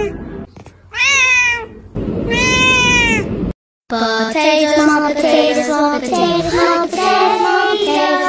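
A cat meowing: two drawn-out meows that rise and fall in pitch in the first three seconds or so. It then cuts off abruptly and background music plays from about four seconds in.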